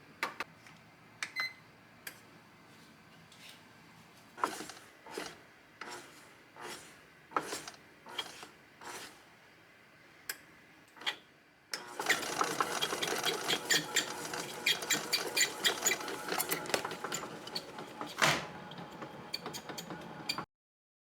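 Household handling sounds: scattered clicks, then a run of knocks and rubs less than a second apart, then several seconds of dense clattering and scraping that cuts off abruptly near the end.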